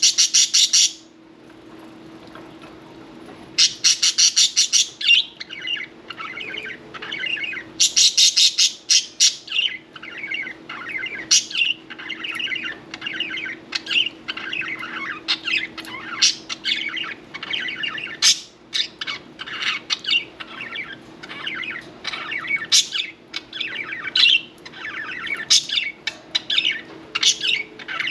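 Budgerigars chattering and warbling: three loud bursts of rapid, harsh chatter in the first ten seconds, then continuous high warbling and chirping.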